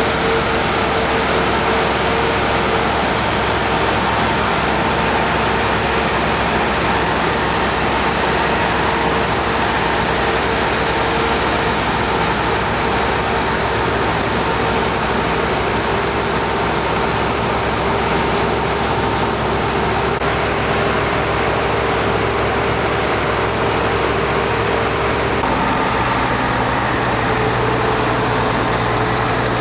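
Heavy farm machinery at work harvesting wheat: combine and tractor diesel engines running steadily, with a constant whine over the noise. About 25 seconds in the sound shifts and a lower engine note comes in, as another machine draws nearer or the shot changes.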